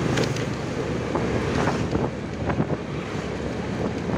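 Steady wind rush on the microphone of a moving motorcycle, with its engine and tyre noise on the road running underneath.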